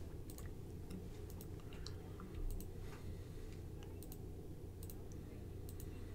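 Faint, sharp clicks, a dozen or more at uneven intervals, over a low steady hum, like a computer mouse or keyboard being used at a desk.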